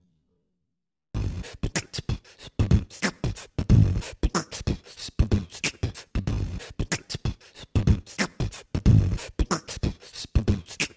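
A fast, loud percussive beat with deep thumps and sharp clicks, starting suddenly about a second in after silence.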